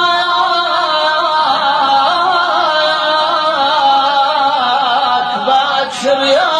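A solo voice singing a long, ornamented wordless melisma in Arabic style. The pitch bends and wavers on held notes, with a brief break and a new phrase near the end.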